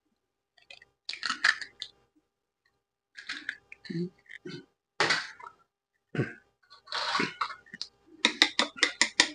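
A raw egg cracked against the rim of a ceramic bowl and its shell pulled apart, with scattered clicks and knocks. About eight seconds in, wooden chopsticks start clicking rapidly against the bowl as the egg is beaten.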